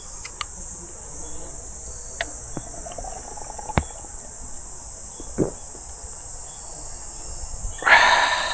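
Steady, high-pitched chorus of insects, with a few faint knocks and a short rush of noise near the end.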